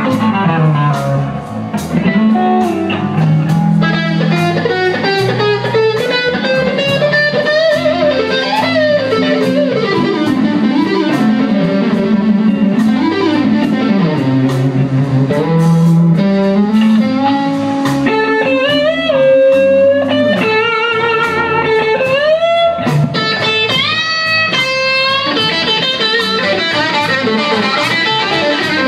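Electric guitar playing a blues solo with notes bent up and down, over a walking low line and a steady drum beat.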